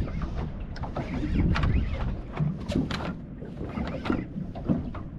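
Wind rumbling on the microphone and water noise around a small boat, with scattered sharp knocks.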